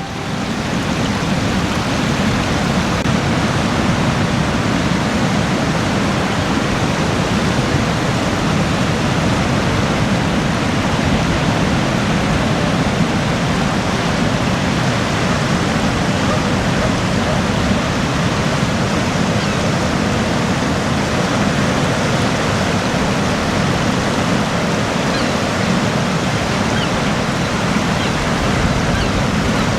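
Steady, even rush of moving water on the beach, with no separate wave surges.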